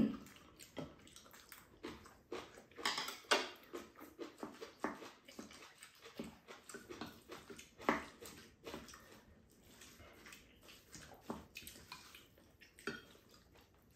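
Two people eating: spoons clicking and scraping against ceramic bowls, with chopsticks and chewing, in short irregular sounds of varying loudness.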